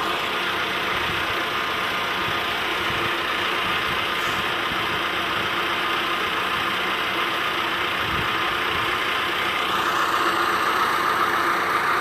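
Engine of a tracked aerial lift running steadily while its boom raises the work basket, growing a little louder near the end.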